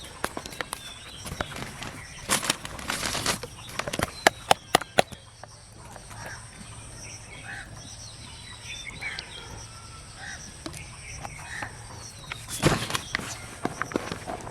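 Birds chirping faintly, with bursts of rustling and a run of sharp clicks and knocks, busiest a couple of seconds in and again near the end.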